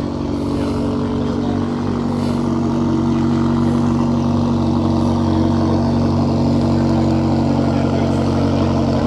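A car engine idling steadily close by, growing slightly louder over the first few seconds and then holding even.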